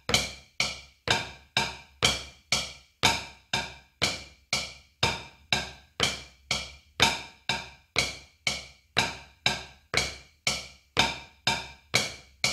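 Wooden drumsticks playing steady single strokes on a rubber drum practice pad, about two taps a second in an even rhythm. Each tap is sharp with a short ring.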